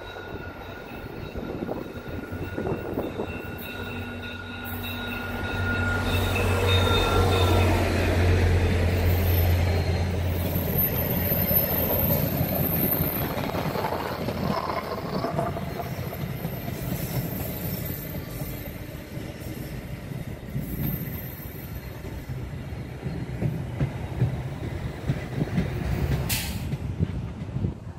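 VIA Rail diesel-hauled passenger train passing close by: a high steady whine fades over the first several seconds as the locomotive comes in, a low engine drone is loudest about six to ten seconds in, then the coaches rumble and clatter past on the rails. There is a sharp crack near the end.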